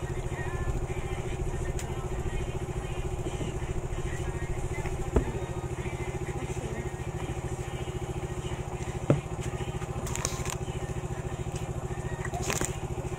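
A steady, rapidly pulsing engine drone. Two sharp clicks stand out, about five and nine seconds in: a metal fork knocking the plastic noodle tray.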